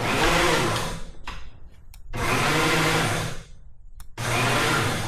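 Electric hoist motor running in short bursts of about a second each, three times, with pauses between, as it lifts an engine and transmission on a strap.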